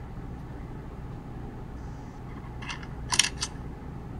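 Three quick, sharp clicks about three seconds in, the middle one loudest, over a steady low room hum.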